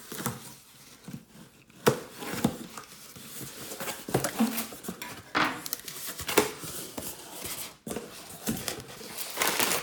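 A shipping package being opened and its packing material handled: irregular rustling and crinkling with sharp clicks and knocks.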